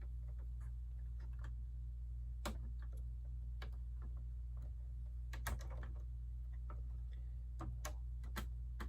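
Plastic Lego pieces being handled and pressed together, giving scattered small clicks, a few sharper than the rest, over a steady low hum.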